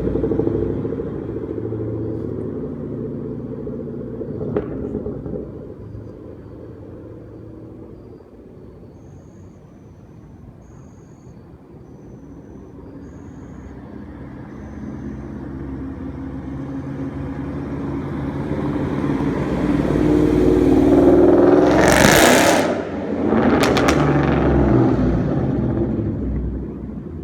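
Ford Mustang GT 5.0 V8 with a loud aftermarket exhaust, first fading as it drives off. It then grows louder as it comes back and passes close by. The engine sound drops sharply for a moment between two loud peaks, then fades again near the end.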